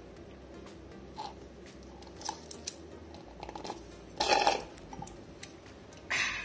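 Metal spoon scraping and tapping inside a glass wine glass: scattered light clicks, then two short louder scrapes, about four seconds in and near the end.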